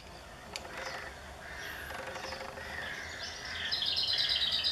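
Garden birds calling and singing, short high calls here and there, then a fast, bright run of repeated high notes about three and a half seconds in that lasts to the end.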